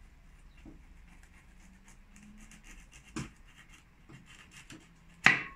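Knife cutting vegetables on a cutting board: faint scraping and slicing, with a sharp knock of the blade on the board about three seconds in and a louder one near the end.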